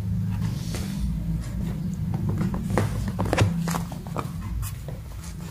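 Kittens' paws and claws scampering on a tiled floor as they chase each other: scattered light taps and clicks, over a steady low hum.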